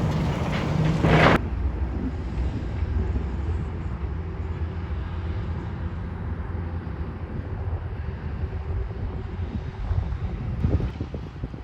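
Heavy demolition machinery running with a steady low diesel rumble. A louder burst of noise in the first second and a half stops abruptly, and a few clattering knocks come near the end.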